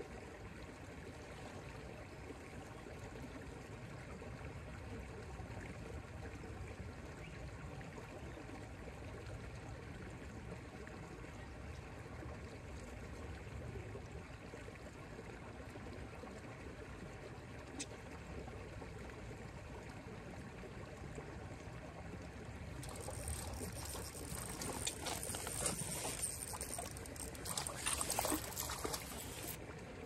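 Steady trickle of flowing water. About 23 seconds in, louder splashing with scattered sharp clicks starts and goes on for about six seconds.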